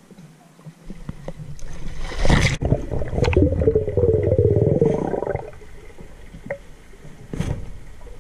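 Water rushing and splashing as the microphone plunges below a river's surface, cutting off sharply about two and a half seconds in. Then a few seconds of dense underwater bubbling and gurgling that fades out, with a faint muffled underwater hush and a sharp click or two after it.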